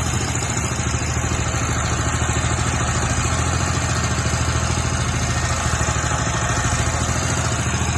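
Engine of a hydraulic soil-boring rig running steadily with a rapid, even pulsing beat.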